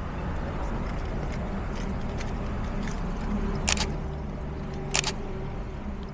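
City street traffic rumbling with a steady engine hum, and two camera shutter clicks a little over a second apart in the second half.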